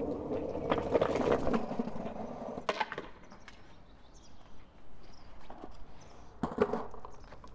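Skateboard wheels rolling on pavement for about two seconds, then the wooden deck clacking as the board is stopped and kicked up, a little under three seconds in. A louder clack near the end comes as the board is set down on the concrete steps.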